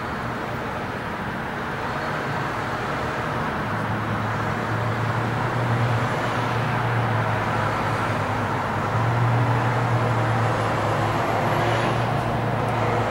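Low, steady engine drone of an aircraft overhead, swelling louder from about four seconds in, over a constant city rumble.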